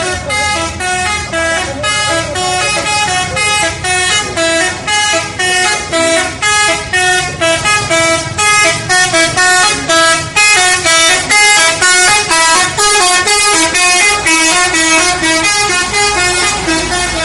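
Indonesian 'telolet' multi-tone bus horn playing a rapid tune of short, loud notes, about four a second, changing pitch throughout.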